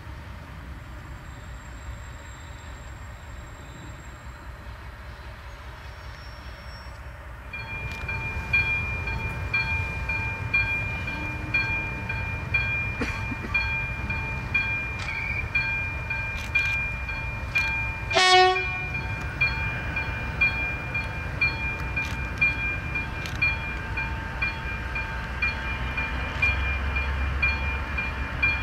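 DR class 119 twin-engined diesel-hydraulic locomotive running with a train, a low rumble at first. About seven seconds in it turns much louder, with the engines' steady whine and a repeating rattle and clicks from the wheels. There is a short, very loud sharp sound about two-thirds of the way through, and the low rumble grows stronger near the end.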